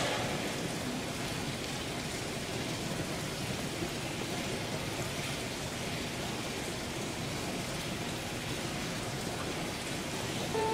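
A steady, even hiss of background room noise with no distinct events.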